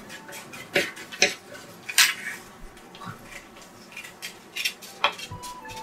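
Scissors snipping paper: short sharp metallic clicks at irregular intervals, the loudest about two seconds in.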